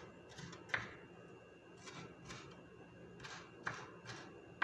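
Scattered light clicks and taps of a utensil on a plate while a salad is mixed, with one sharper click about a second in.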